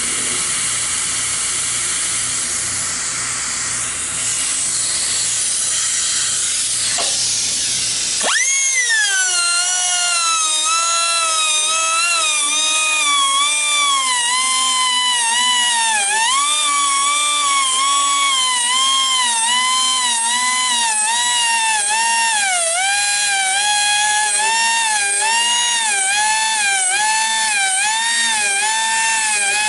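Handheld high-speed rotary grinder sharpening a sawmill band blade. It starts as a hissing grind, and about eight seconds in becomes a high whine whose pitch dips and recovers over and over as the stone is worked tooth by tooth along the blade.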